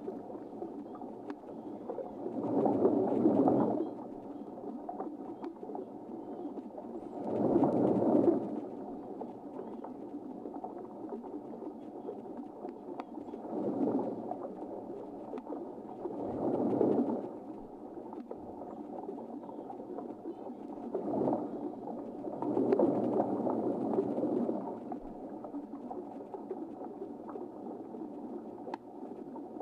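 Underwater drone's thrusters humming steadily, surging about six times in noisy whooshes a few seconds apart as the drone is steered against a hooked fish.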